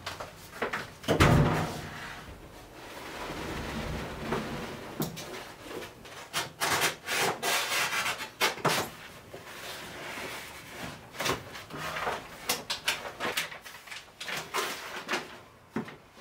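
A roll of adhesive puff-sheet film rustling, crinkling and rubbing as it is handled and unrolled, in many short bursts, with scattered knocks and a heavy thump about a second in.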